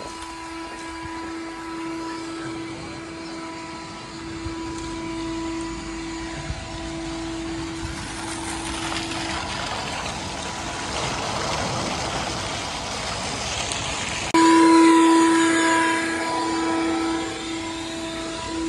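A vacuum's motor running with a steady whine, drawing the air out from behind a new above-ground pool liner to pull it tight and take out the wrinkles. Midway, water from a fill hose gushes and splashes into the pool. About fourteen seconds in, the vacuum suddenly becomes much louder.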